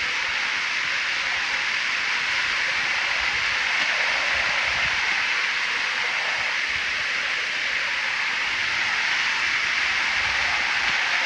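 Rain-swollen creek rushing in a fast, foaming current: a steady hiss of whitewater.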